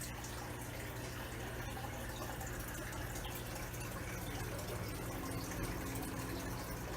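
Water running and splashing steadily into a half-filled aquarium, over a steady low hum.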